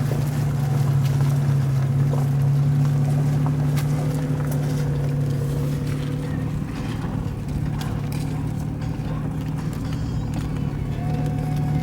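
Four-wheel-drive vehicle's engine running steadily.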